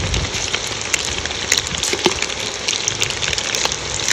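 Battered egg 65 pieces deep-frying in a large pot of hot oil: a dense, steady sizzle with many small crackles and pops.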